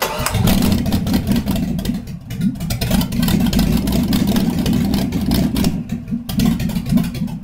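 Chevy 350 small-block V8 with a gear-drive timing set, on an engine stand, catching suddenly and running with uneven revving that dips briefly about two seconds in and again near the end.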